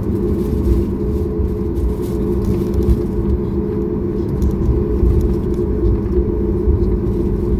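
Cabin noise of a Boeing 737 MAX 8 taxiing, heard from inside the cabin: the steady low rumble and hum of its CFM LEAP-1B engines at taxi power.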